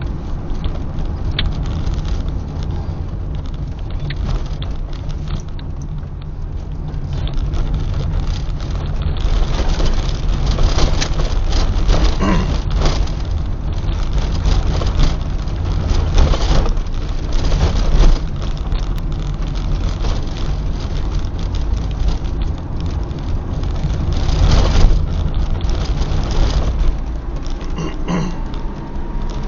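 Car driving along a rough road: a steady low rumble of engine and tyres, with several louder knocks and rattles from bumps in the surface through the middle and again near the end.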